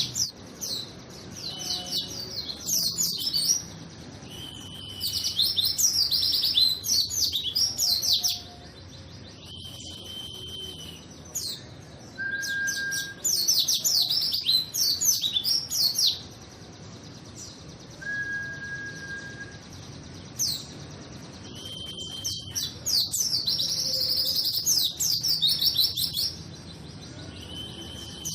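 A pleci (white-eye) singing loudly in repeated phrases. The phrases are bursts of rapid, high, falling twittering notes, broken by short held whistles, with brief pauses between phrases.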